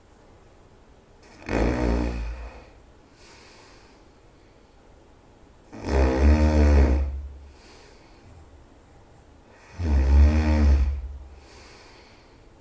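A person snoring loudly: three long snores about four seconds apart, with fainter breaths between them.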